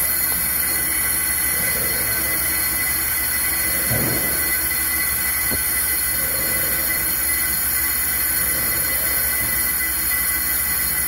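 On-car brake lathe machining a brake rotor on the vehicle: the rotor spins steadily while the cutting bits shave both faces, giving a steady high-pitched metallic squeal over the machine's hum. A short knock about four seconds in.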